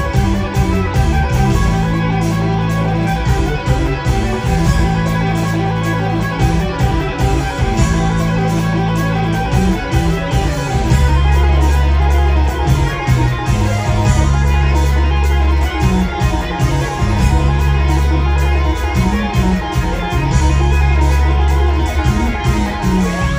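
Live rock band playing instrumental music: electric guitar over deep held low notes that change every couple of seconds.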